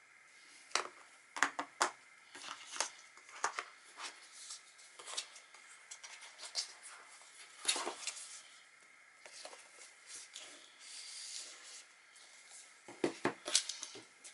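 Hands handling cardboard packaging and an Apple Pencil on a desk: a run of small clicks and taps with card rubbing against card, and a quick cluster of sharper taps near the end.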